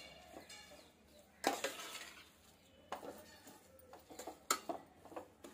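Metal slotted spoon scraping and clinking against a stainless steel pot while stirring grated beetroot frying in ghee, in a few irregular strokes.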